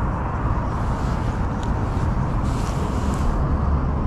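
Steady road traffic noise with a deep rumble, a little more hiss about two and a half seconds in.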